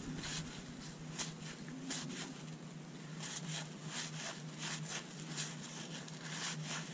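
A stack of 1981 Fleer cardboard baseball cards being fanned and slid apart by hand: faint, irregular clicks and short scrapes of card edges rubbing together, over a low steady hum.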